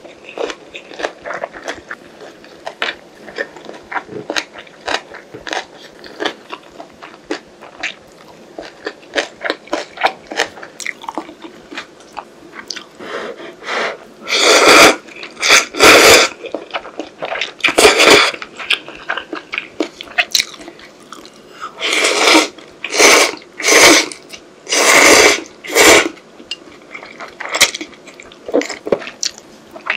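Close-miked chewing of a mouthful of kimbap, with many small wet clicks of the mouth. From about halfway come loud slurps of ramen noodles, several in a row, each about a second long.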